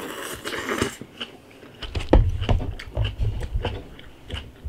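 Close-up eating sounds: a crisp, crackly bite into a fried chicken burger, then chewing with wet clicks and soft thuds, about three chews a second.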